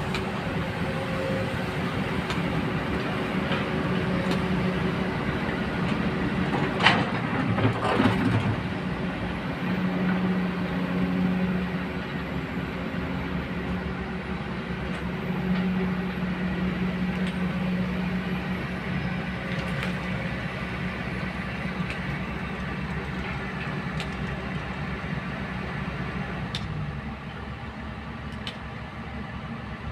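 Hydraulic excavator's diesel engine running steadily, swelling several times as it takes load, with a sharp knock about seven seconds in and a short rattle of knocks about a second later.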